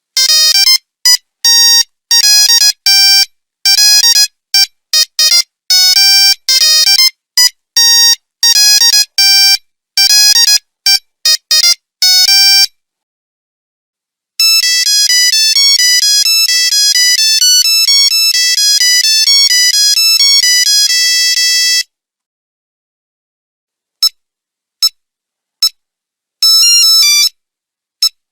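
Nokia 3310 monophonic ringtones. A melody of short, separate beeping notes plays for about twelve seconds and stops. After a short pause comes a faster, unbroken run of notes lasting several seconds, and near the end a few short beeps start another tune.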